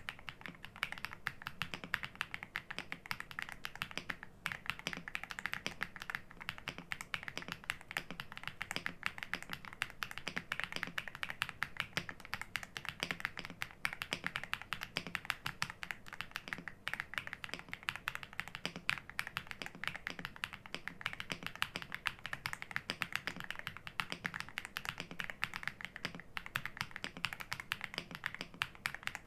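Fast, continuous typing on a Lingbao K87 mechanical keyboard with Star Vector switches and double-shot PBT keycaps: a steady stream of closely spaced keystroke clicks.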